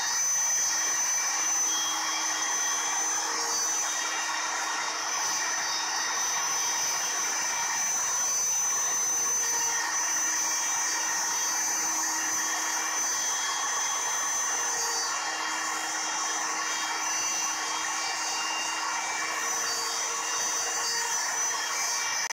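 Homemade CNC router's yellow rotary-tool spindle running at a steady high whine while its bit carves into a wooden board. A fainter tone comes and goes several times over the steady noise.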